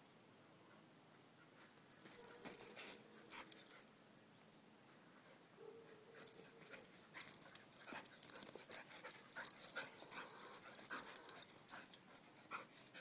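A dog's short, noisy huffs and breaths as it plays with a rooster. They come in two spells, a brief one about two seconds in and a longer one from about six seconds in.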